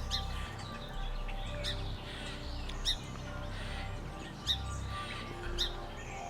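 Songbirds chirping outdoors: short, sharp high chirps repeating roughly once a second, over soft sustained lower tones and a low rumble.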